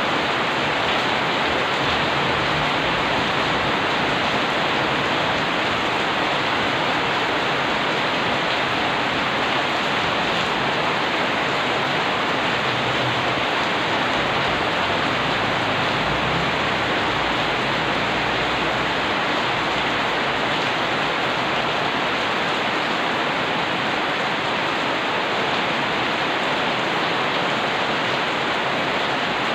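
Steady heavy rain falling and splashing on wet surfaces, an even hiss that neither builds nor eases.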